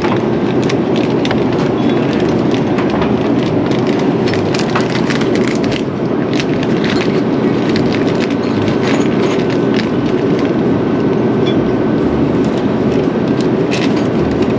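Airbus A350 airliner cabin noise in flight: a steady, loud rush of engine and airflow noise with a faint constant high tone and scattered light clicks.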